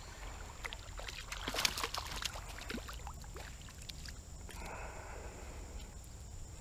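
Water splashing as a small hooked bass thrashes at the surface while it is reeled in: a run of short splashes, loudest about two seconds in, then a softer rush of water as the fish is lifted out.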